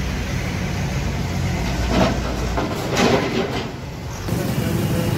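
Street traffic: a motor vehicle's engine running close by, with two louder swells of noise about two and three seconds in. The low engine hum drops away about halfway through.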